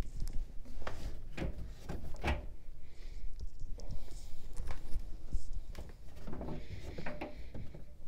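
Thick cotton towels being pushed by hand into an empty dryer drum: fabric rustling, with a few short knocks in the first half.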